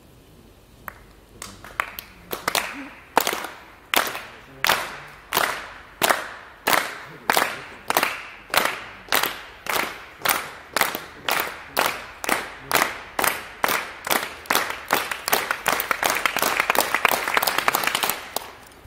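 A crowd clapping together in a slow, even rhythm, about three claps every two seconds, in a reverberant indoor hall. In the last few seconds the beat breaks up into fast, dense clapping. This is the rhythmic clap that spectators give a high jumper on the run-up, swelling as he reaches the bar.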